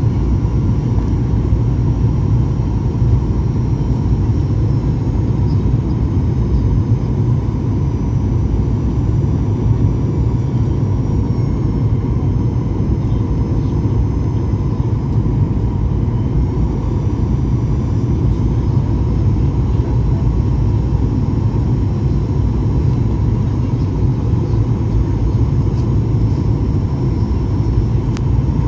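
Steady low rumble of an airliner, with a faint, steady high whine above it.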